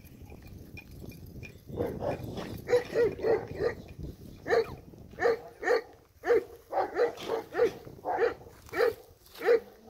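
A dog barking repeatedly in a long series, roughly two short barks a second, starting about two seconds in.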